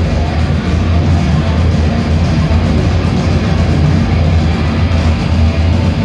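Thrash metal band playing live at full volume: distorted electric guitars, bass guitar and a drum kit in a dense, unbroken wall of sound.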